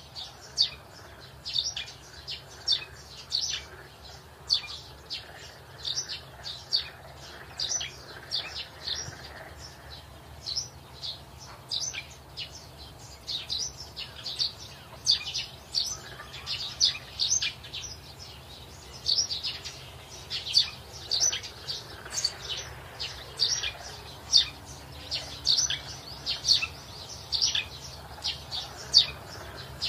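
Small birds chirping in the morning, a dense run of short, high chirps at about two or three a second, overlapping, over a faint steady low hum.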